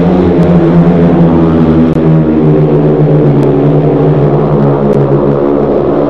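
Several speedway motorcycles racing, their single-cylinder methanol engines running hard at high revs in a loud, steady note with several overlapping pitches. The sound drops out very briefly about two seconds in.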